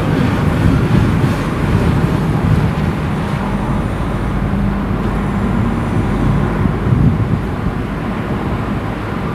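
Low, continuous rumble of rolling thunder from intracloud lightning, easing slightly near the end.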